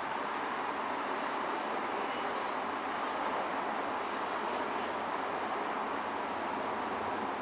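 Steady hiss of road traffic going by, with faint, high bird chirps now and then.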